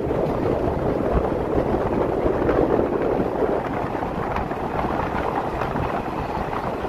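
Moving passenger train heard from an open coach doorway: a steady rush of running noise, with wind buffeting the microphone.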